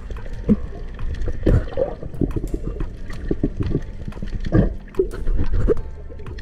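Underwater sound near the surface: water gurgling and sloshing, with irregular low thumps and a scatter of sharp clicks.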